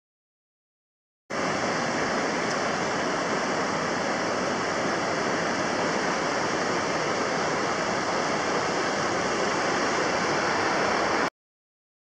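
Fast-flowing river water rushing steadily, starting abruptly about a second in and cutting off suddenly shortly before the end.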